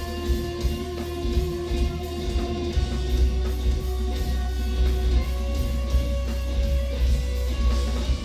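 Live instrumental progressive metal played through a club PA: extended-range electric guitars holding ringing notes over a heavy bass end and busy drum kit.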